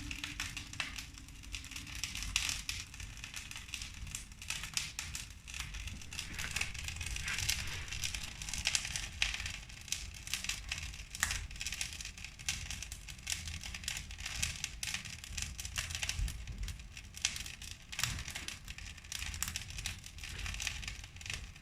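Wood fire crackling in a fireplace, with steady irregular pops and snaps over a low rumble of the flames.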